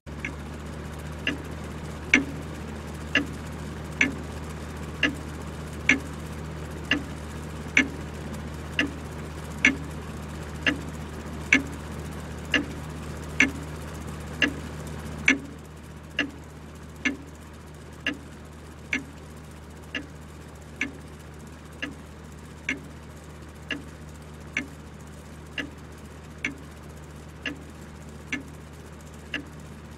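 A clock ticking steadily, about once a second, over a low steady hum. About halfway through, the hum drops away and the ticks become a little quieter.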